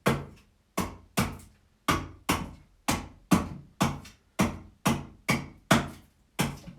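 Axe chopping into a block of fresh wood: about thirteen sharp strikes at roughly two a second, stop-cuts into the handle area of a lámhóg blank.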